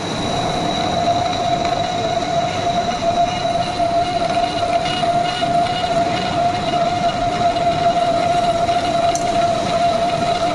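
Metal lathe running during a boring cut: steady machine noise with a constant high whine.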